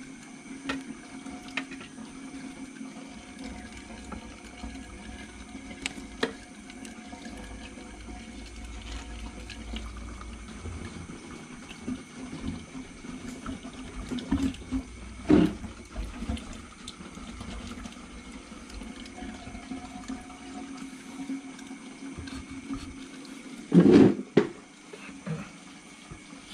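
Aquarium water being stirred and splashed as floating plant-trimming waste is scooped off the surface, over a steady hum. Scattered small water sounds, with a louder splash near the end.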